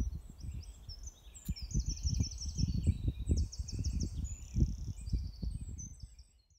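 Small birds singing in quick runs of high, rapidly repeated chirps, over gusts of wind buffeting the microphone that are the loudest sound. Both cut off suddenly near the end.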